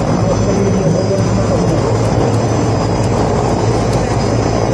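Mi-17 military helicopter running overhead: a steady, loud drone of rotors and turbine engines.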